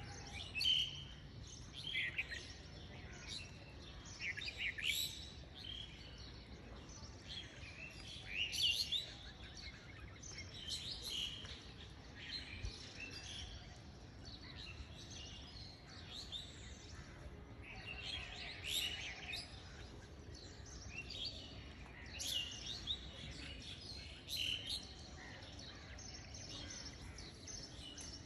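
Small birds chirping, with short high chirps coming in quick clusters every second or two over faint background noise.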